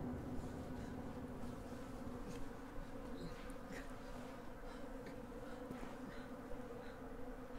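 A quiet, steady buzzing hum with a few faint scattered ticks over it.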